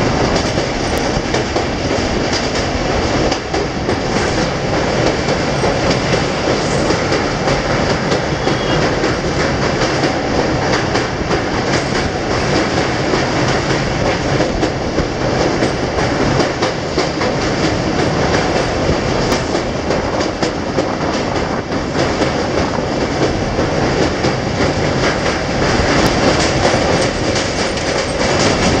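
Passenger train running at speed, heard from a coach doorway: a steady rumble with the wheels clacking over rail joints.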